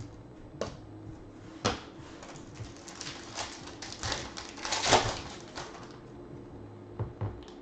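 Foil trading-card pack wrapper crinkling and crackling as it is torn open by hand, loudest about five seconds in, with a few single crackles before and after.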